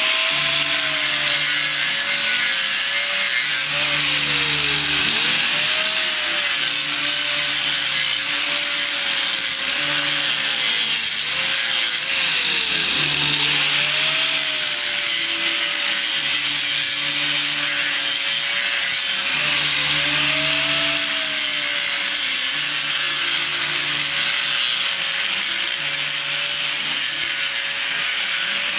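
Stick (SMAW) welding arc crackling and hissing steadily on steel pipe, with a wavering hum underneath.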